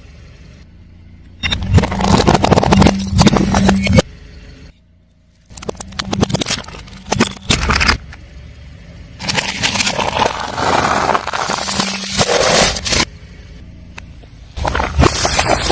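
A car tyre rolling over and crushing crunchy objects: dense crackling and snapping over a low engine hum. It comes in several separate bursts with sudden short quiet gaps between them.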